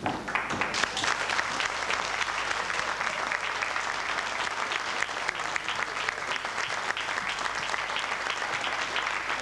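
Audience applauding: the clapping starts suddenly and carries on steadily.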